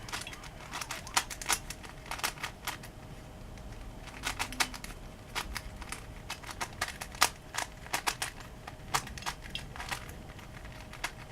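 DaYan Megaminx puzzle being turned by hand: irregular runs of sharp plastic clicks as the ridged faces snap round.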